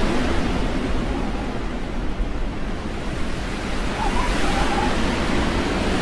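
Snowstorm wind blowing hard: a dense, steady rushing noise with a deep rumble underneath. About four seconds in, a faint wavering howl joins it.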